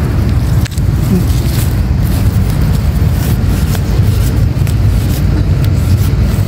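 Steady low rumble of wind buffeting the microphone, with a few faint clicks.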